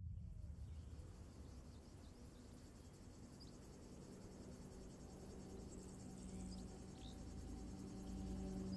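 Faint ambience with a few scattered short, high chirps. About halfway through, a low sustained music drone of held tones slowly swells in.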